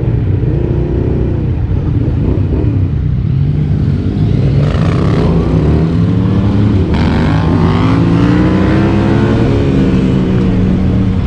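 Yamaha Ténéré 700's 689 cc parallel-twin engine running under way: the note wavers at first, then climbs steadily for several seconds as the bike accelerates, and drops back near the end.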